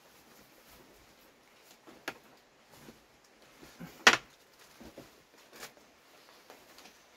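A handful of short, sharp knocks and snaps, the loudest about four seconds in and a smaller one about two seconds in, over low background hiss.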